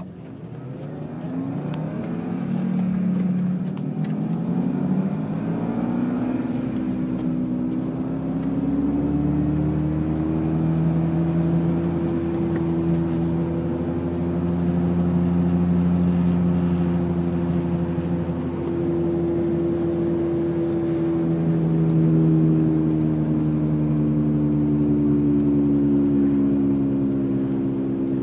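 Cabin sound of a 1999 BMW 328i (E46) pulling away, its engine rising in pitch for the first several seconds. It then settles into a loud, steady hum at cruising speed from a worn right rear wheel bearing, louder than the engine.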